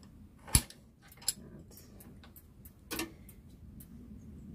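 A metal spanner clicking and knocking against a bike pedal's spindle and crank arm as the loosened pedal is worked off. One sharp knock comes about half a second in, smaller ones a second later and about three seconds in, with light ticks between.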